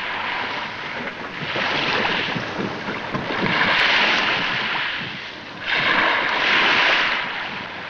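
Sea water washing and splashing in slow surges about every two seconds, with a sharper surge about two thirds of the way in.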